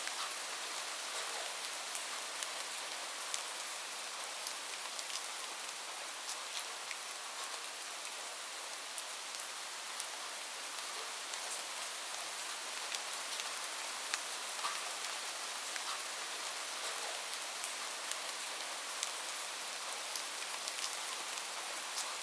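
Light rain falling steadily, an even high hiss dotted with many separate crisp drop ticks.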